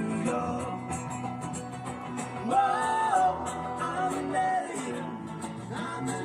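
A song with a sung melody over guitar and a steady beat.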